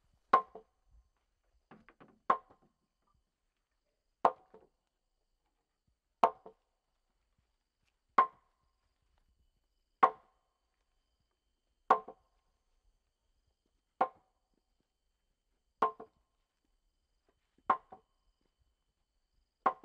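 A wooden pole pounding on wood: about eleven sharp, heavy knocks, evenly spaced at about one every two seconds.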